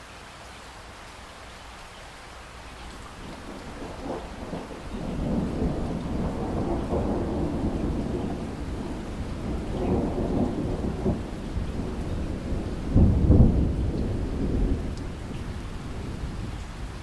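Steady rain with a long roll of thunder that builds after a few seconds, swells in waves, is loudest about two-thirds of the way through, and dies down near the end.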